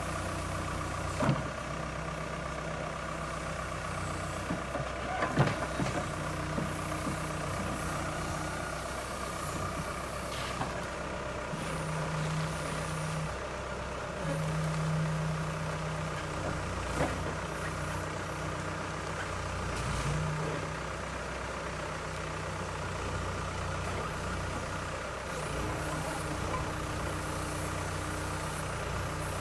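JCB excavator's diesel engine running steadily, with a few short swells in engine note partway through and some sharp knocks near the start.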